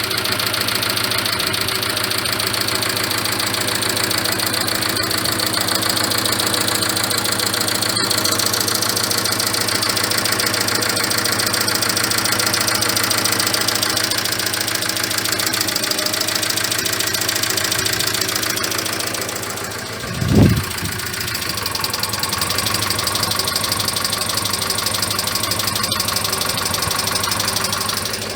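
Mitsubishi Carisma GDI's 1.8-litre four-cylinder direct-injection petrol engine idling with a steady knocking clatter, which the owner means to cure with a change to 10W-40 oil. About two-thirds of the way through, a brief loud low thump.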